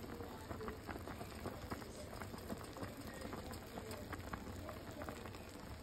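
Pork estofado simmering in a pan of sauce: a steady, irregular crackle of many small bubbles popping.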